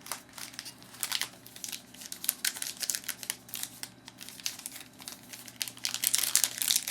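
Crinkling of a trading card pack wrapper being handled and torn open, an irregular run of crackles that grows busier towards the end.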